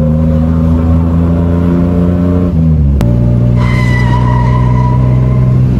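Suzuki Cultus's three-cylinder engine running through an aftermarket exhaust, heard from inside the cabin while driving; a loud, steady note that drops in pitch about two and a half seconds in. After a cut the note holds steady, and a higher steady tone joins it about a second later.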